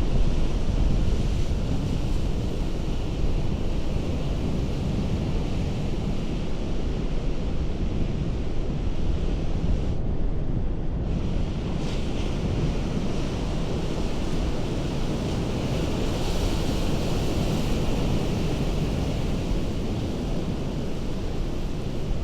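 Ocean surf breaking against a rocky coast: a steady rushing wash of water over a deep rumble, gently swelling and easing. The high hiss briefly drops away for about a second near the middle.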